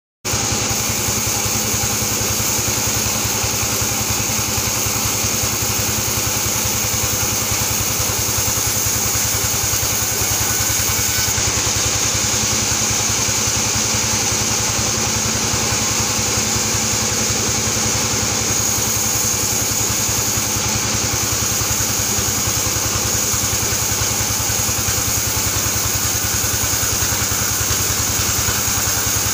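Vertical band sawmill running steadily while sawing an albasia log into boards: a continuous machine drone with a constant high whine.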